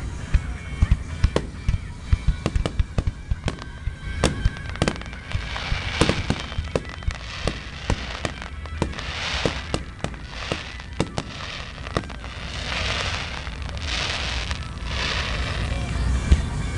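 Fireworks bursting overhead: a rapid string of sharp bangs, then from about halfway several longer rushing crackles as showers of stars go off, over a steady low rumble.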